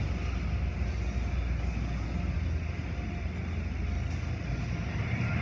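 Automatic car wash running: a steady rumble with a hiss of spraying water.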